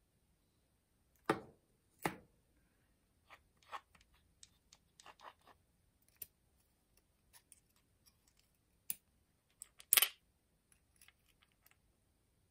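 Metal planetary-gearbox parts of a Makita DF001G drill-driver clicking and clinking as they are pried loose and lifted out with a metal pick and tweezers. Scattered light taps, with louder knocks about a second and two seconds in and a louder clatter near the end.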